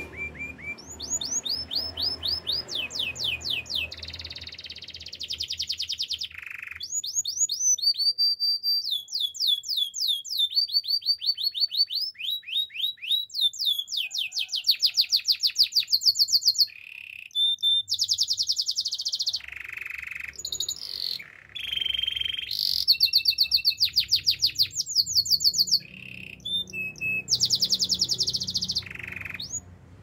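Domestic canary singing a long, almost continuous song of high-pitched rapid trills, each made of quickly repeated sweeping notes, switching to a new trill every second or two.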